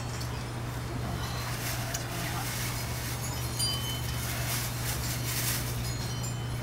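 Scattered light, high-pitched clinks and tinkles over a steady low hum.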